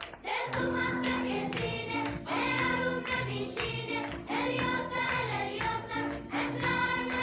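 Background music with singing voices, a new song starting about a quarter-second in after a brief dip.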